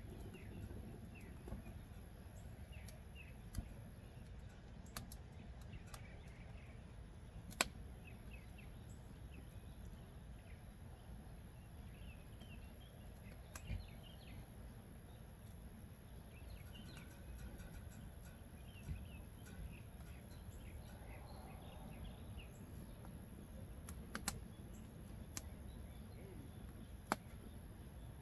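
Wood fire burning in a smoker's firebox, crackling with sharp pops every few seconds, over a low steady rumble. Birds chirp faintly in the background.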